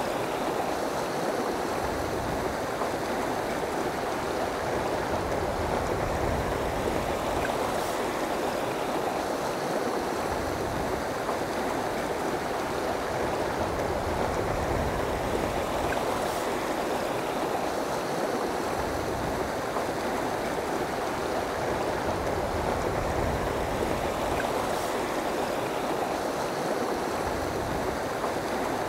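Steady rushing of a river flowing over and around rocks.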